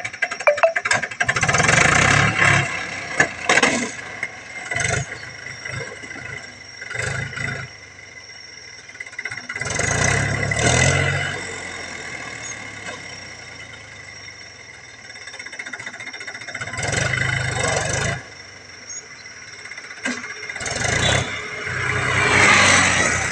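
Mahindra 275 DI tractor's three-cylinder diesel engine revved hard in several surges, dropping back to a quieter idle between them. There is some rattling clatter in the first second.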